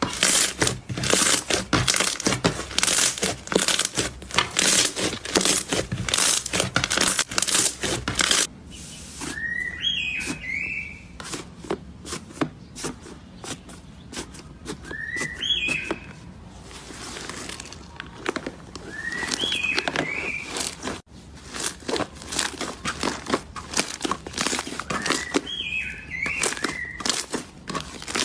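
Slime being squeezed and pressed, with dense crackling and popping for the first several seconds, then quieter sticky clicks. Short rising, whistle-like squeaks come in four brief groups through the second half.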